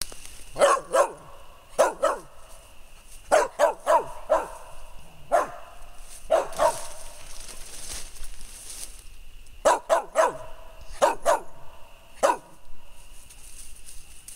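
Mullens feist dog barking at a tree, in quick bursts of two to five sharp barks with short pauses between: a squirrel dog barking treed on a raccoon. A steady high drone runs underneath.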